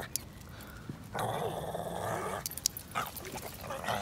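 Shih Tzu growling in play while tugging on a toy, one long rough growl about a second in and another starting near the end, with a few light clicks between.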